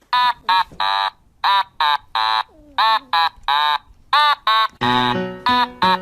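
Background music: a children's-style tune of short, high-pitched vocal notes in groups of three, with a bass line and backing chords coming in about five seconds in.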